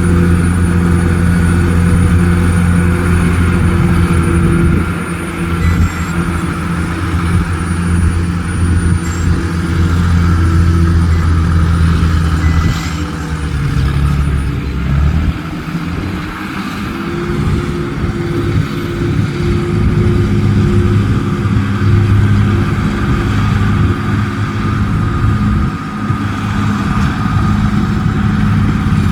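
Dump truck's diesel engine running steadily at a construction site, its note dipping and shifting about halfway through before settling again.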